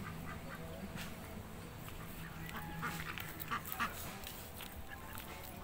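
Faint, scattered quacking of domestic ducks.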